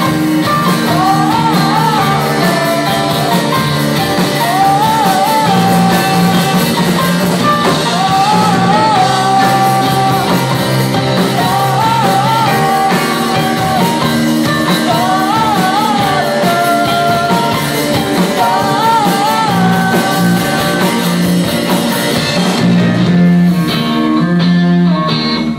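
Live rock band playing: a woman sings lead over keyboard, electric guitar and drums, with a melodic phrase that comes back every few seconds.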